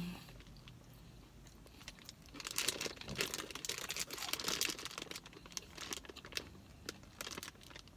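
A chip bag crinkling and rustling in the hands, in a run of crackly bursts that starts about two and a half seconds in and dies down near the end. The bag is a Flamin' Hot Cheetos bag wrapped around a burrito as its holder.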